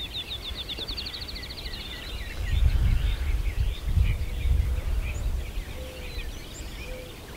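Wild birds singing: a fast trill of rapidly repeated high notes in the first second and a half, then scattered chirps. Under them, gusts of wind rumble on the microphone, strongest in the middle.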